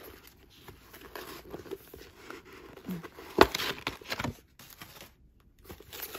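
Paper packing and a card insert rustling and crinkling as they are pulled out of a leather handbag, with a sharp, louder crackle about three and a half seconds in.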